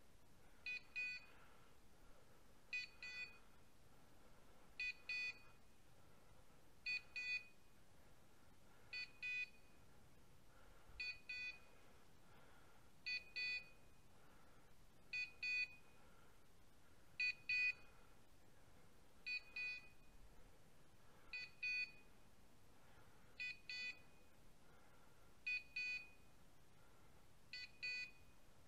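Dog's beeper collar sounding pairs of short, high electronic beeps about every two seconds, the pattern such a collar gives while the setter stands still on point.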